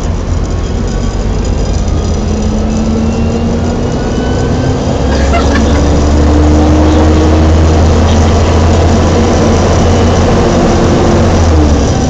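Volvo B7TL bus under way, heard from the upper deck: the Voith automatic gearbox whines, rising slowly in pitch as the bus gathers speed, then drops near the end. Under it the D7C six-cylinder diesel and cooling fan drone loudly, growing stronger about five seconds in.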